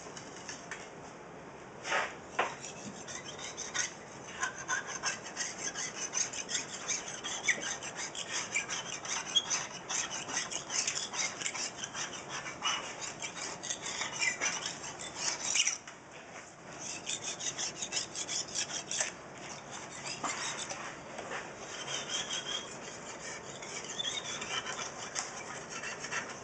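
Blade scraper shaving old silicone off the edge of an aquarium glass panel: rapid, repeated rasping strokes, with a brief pause about two-thirds of the way through and a couple of knocks near the start.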